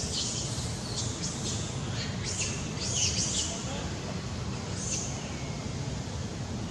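Birds chirping: a run of short, high chirps over about the first five seconds, heard over a steady low rumble.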